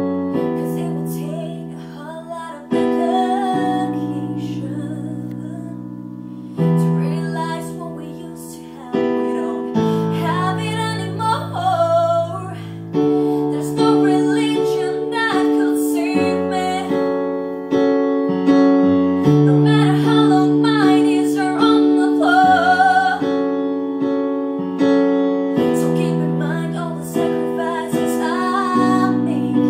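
A young woman singing a slow ballad, accompanying herself with piano chords on a Yamaha MOX8 synthesizer keyboard, a new chord struck every couple of seconds.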